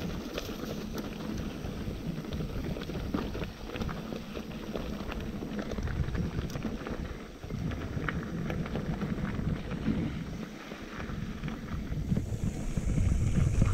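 Wind rumbling on a chest-mounted action camera's microphone during a mountain bike ride, with frequent short rattles and clicks from the bike on rough trail; the rumble grows louder near the end.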